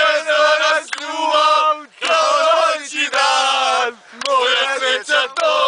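A group of men singing loudly together, half shouting, with short breaks about two seconds in and about four seconds in.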